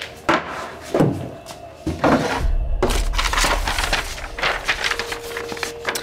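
A few knocks and thuds of things being handled, then a crackly rustle of paper as a sheet of documents is picked up and handled.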